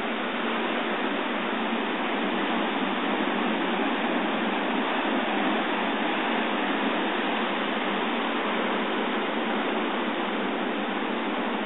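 Ocean surf breaking and washing over a lava-rock shoreline at high tide, a steady rushing noise without distinct wave-by-wave swells.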